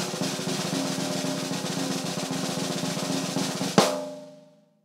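Snare drum roll sound effect, a fast steady roll that ends in a sharp final hit about four seconds in, which rings out and fades: the drum-roll build-up to a reveal.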